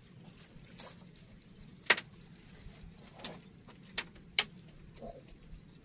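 A few short, sharp clicks and knocks, the loudest about two seconds in and three more in the second half, over a faint steady low hum.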